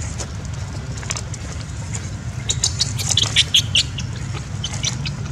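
Outdoor ambience: a steady low rumble, with a quick run of short high chirps and clicks from about two and a half to four seconds in.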